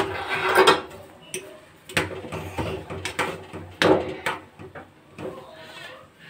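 Metal spoon stirring boiling milk tea in an aluminium saucepan, clinking and scraping against the pan several times.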